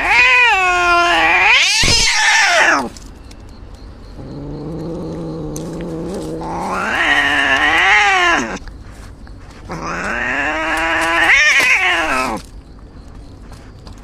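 Cat caterwauling: three long, wavering yowls that rise and fall in pitch, with a lower, steadier growl between the first two.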